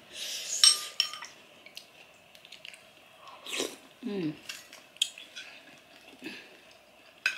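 Metal spoon and fork scraping and clinking against a plate, with one bright ringing clink in the first second, then scattered light clicks and quiet chewing. A short vocal sound comes about four seconds in.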